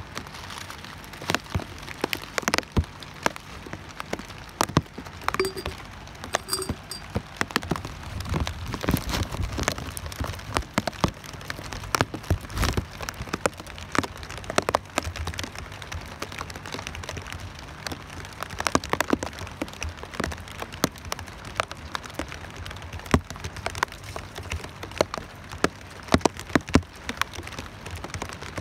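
Rain falling, with many sharp separate drop hits at irregular intervals over a steady hiss.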